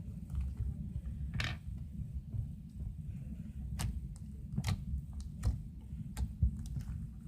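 Slime being squished and worked by hand, giving a series of sharp pops and clicks about once a second over a steady low rumble.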